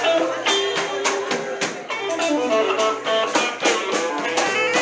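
Blues band playing: guitar notes over a drum kit keeping a steady beat.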